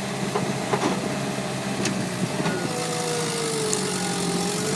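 Earthmoving machinery at work during a mud recovery: a steady diesel engine hum with a whine that slowly falls and rises in pitch, and a few sharp metallic clanks in the first two seconds.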